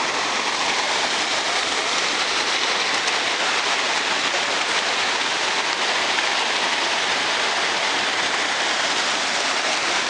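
Rushing water of a shallow rocky stream running over rocks, a steady even hiss.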